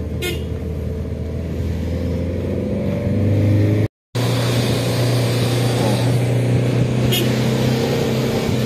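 Motor vehicle engine running steadily under way, heard from the moving vehicle along with road noise; the sound cuts out for a moment about four seconds in, at an edit.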